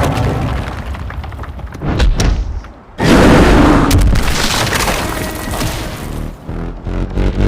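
Dubbed monster-fight sound effects: heavy, bass-heavy booms and impacts. The sound dips briefly, then a sudden loud hit comes about three seconds in and rumbles on.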